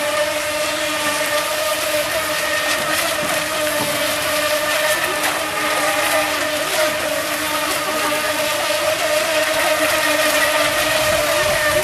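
Several radio-controlled electric racing boats running at speed in tight circles, their motors a steady high whine of overlapping pitches that waver as the boats turn, over a steady hiss.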